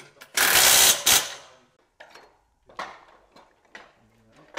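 Cordless impact driver hammering as it tightens a bolt on an aluminium track joint, in one loud burst of just under a second near the start. A few shorter, fainter mechanical bursts follow.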